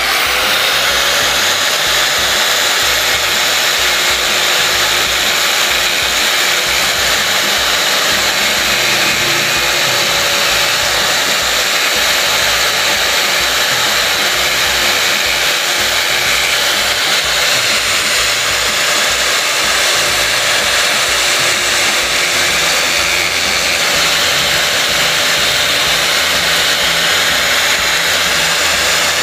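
Small handheld angle grinder spinning up, then running steadily with a constant whine as its disc trims the edge of an acrylic custom turn-signal housing to make it fit.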